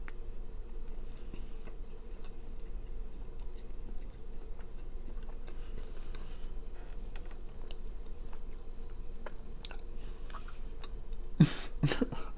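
Close-miked chewing of a soft chocolate chip cookie: quiet wet mouth clicks and smacks, with two louder mouth sounds near the end.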